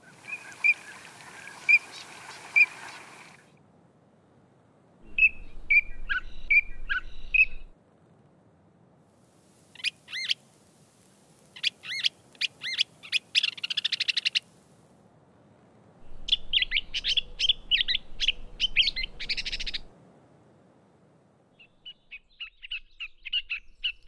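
Bird calls in four short clips with pauses between: whistled peeps of a green-winged teal, then rapid sputtering calls of a western kingbird, each heard alongside a gray catbird's mimicked version of the same phrase. The gray catbird's song goes on near the end.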